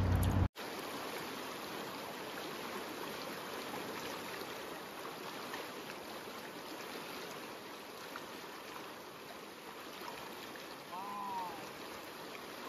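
River water rushing steadily in high flow, a continuous even hiss. A loud low rumble cuts off abruptly in the first half second.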